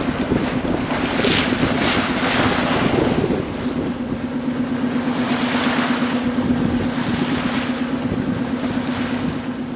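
Wind buffeting the microphone and water rushing past the hull of a sailboat under way, swelling in surges about a second in and again near the middle. A steady hum runs underneath.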